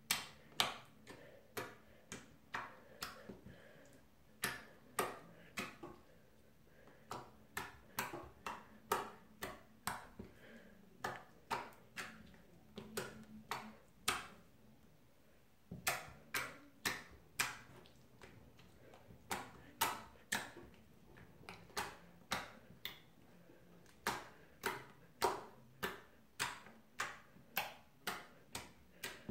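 Fingertip poking a runny clear slime, each poke making a sharp wet click as the slime lets go of the finger. The clicks come in runs of about two or three a second, with short pauses between runs.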